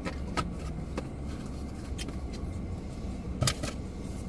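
A few short clicks and crackles from handling food and its packaging, the loudest about three and a half seconds in, over a steady low hum.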